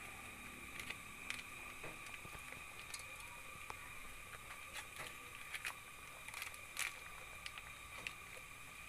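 Faint, scattered pops and crackles of a pot of potato and turnip broth at a low boil, over a steady faint high-pitched hum.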